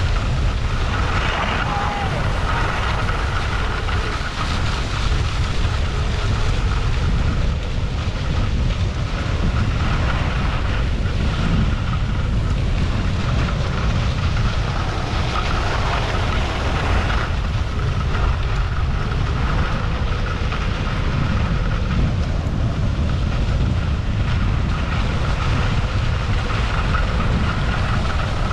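Wind buffeting a GoPro Hero 8 microphone and skis sliding on groomed snow during a steady downhill run: a continuous low rumble with a hiss over it.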